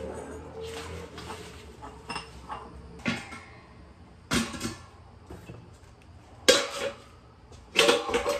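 Metal kitchen bowls and pans clattering as they are handled and set down. There are about five sharp clanks, some ringing briefly, and the loudest come in the last two seconds.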